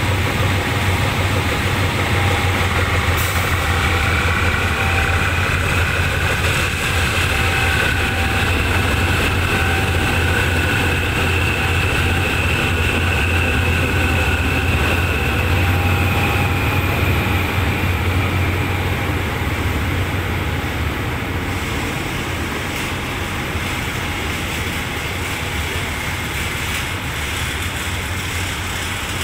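Diesel locomotive passing at close range at low speed: a steady deep engine drone with a fainter whine above it that rises and then falls, the whole sound easing off over the last several seconds as it moves away.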